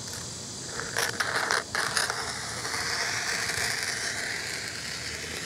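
Sharp scissors cutting through a sheet of plastic reflective window film: a few short snips around a second in, then a long steady rasp as the blades slide through the film.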